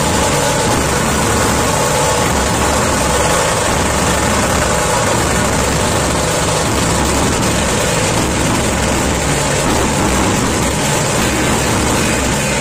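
Dhol-tasha ensemble playing: many large dhol barrel drums struck with sticks together with small tasha drums, a loud, dense, unbroken wall of drumming.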